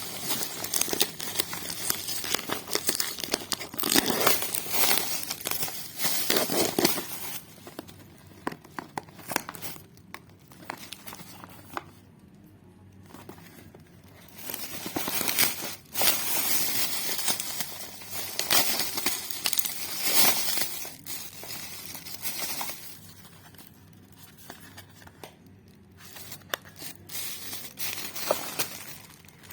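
Packaging being unwrapped and handled: crinkling and rustling in bursts, with sharp clicks and a couple of short lulls.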